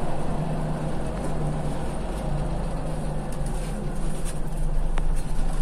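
Scania CL94UB city bus engine and drivetrain running with a steady low hum, heard from inside the passenger cabin, with a light click about five seconds in.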